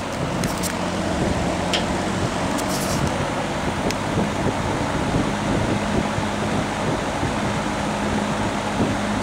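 GE W-13 box fan running: a steady rush of air over a faint motor hum, with a few light clicks in the first few seconds.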